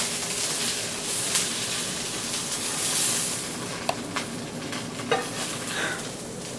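Seafood and spring-onion pancake sizzling in hot oil in a frying pan as it is scraped out onto a plate with a spatula, with a couple of light taps of the spatula on the pan about four and five seconds in.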